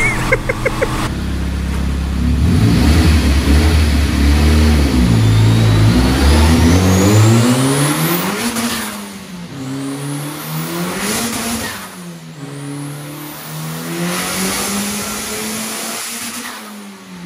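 Turbocharged SR20DET four-cylinder engine in a Nissan 300ZX revving hard, climbing in pitch and dropping back several times.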